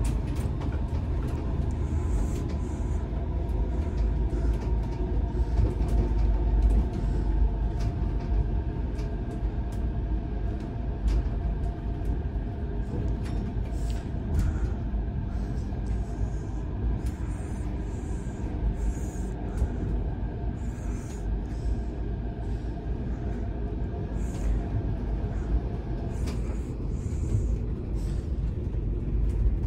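Chiba Urban Monorail Type 0 suspended monorail car running along the track, heard from inside the passenger cabin: a steady low rumble with a faint even whine above it, and the whine fades near the end.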